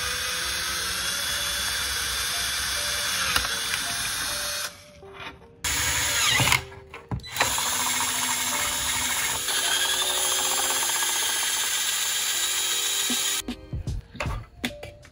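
Cordless drill with a twist bit boring through the plastic shell of a DJI Phantom 3 drone. It runs in two long spells, about four and then about eight seconds, with a short pause between, then stops. A few light knocks follow near the end.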